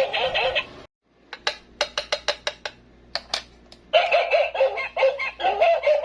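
A mini doghouse toy plays a warbling electronic sound effect through its small speaker. The sound breaks off about a second in, and a quick run of about ten sharp clicks follows, getting softer. The electronic sound starts again near the end.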